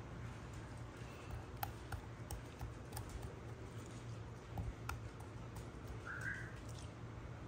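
Light scattered knocks and scrapes of a serrated kitchen knife on a wooden cutting board as diced tomatoes are pushed about, over a low steady hum.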